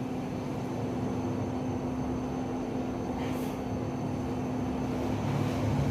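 A steady low background hum with a faint constant tone in it, growing slightly louder toward the end, and a brief soft higher noise about three seconds in.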